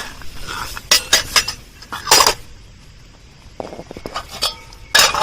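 Cooking utensils knocking and scraping against pots and containers: a string of sharp clinks, with louder scrapes about two seconds in and near the end.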